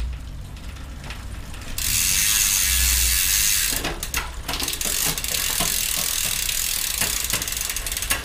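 Bicycle drivetrain turned by hand in a workstand, running from about two seconds in: the chain whirs over the chainrings and sprockets with many small clicks and rubs on the front derailleur after a downshift. The mechanic blames the rub on a triple front derailleur fitted to a 2x10 drivetrain.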